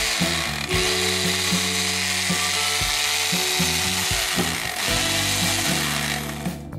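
Restored Valdor electric drill running steadily, stopping suddenly near the end, over background music.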